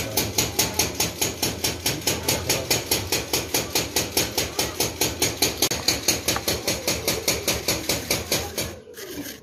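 Rapid, very even hammer blows on metal, about five a second, which stop near the end, followed by a few separate knocks.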